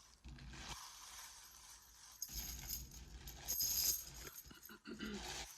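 Light gold metal fashion belt jingling and clinking as it is handled, in irregular bursts that are loudest a little past the middle.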